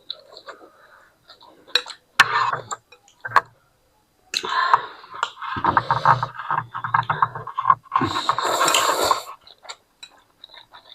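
Eating at the table: a few sharp clicks of utensils on a bowl, then a long stretch of noisy slurping and chewing of ramen noodles from about four seconds in, loudest near the end.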